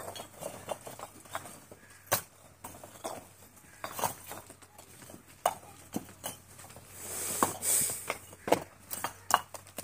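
Fired clay bricks clacking and knocking together as they are stacked by hand onto a brick-carrying frame: irregular sharp clinks, several a second at times, with a brief scraping hiss about seven seconds in.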